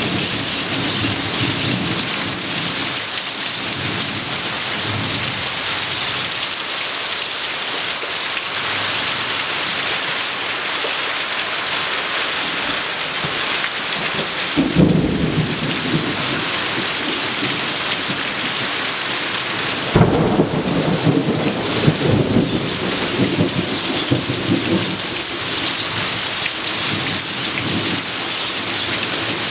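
Heavy rain falling steadily, with runoff pouring off a roof edge. Thunder rumbles about halfway through, and a sharper thunderclap follows a few seconds later and rolls on for a couple of seconds.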